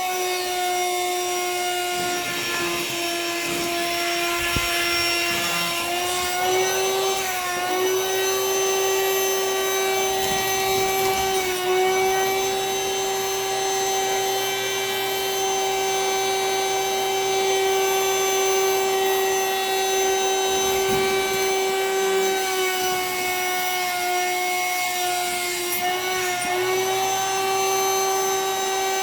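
A small electric vacuum motor runs steadily with a high whine, drawing air out of a vacuum storage bag packed with plushies. Its pitch dips briefly a few times, around 6, 11 and 26 seconds in, as the load on the motor shifts.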